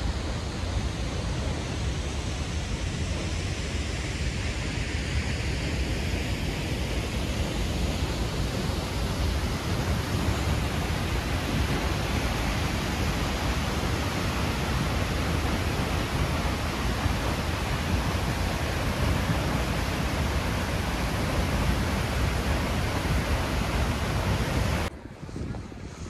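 Waterfall's falling water rushing steadily, a dense even noise with no pitch, cutting off abruptly about a second before the end.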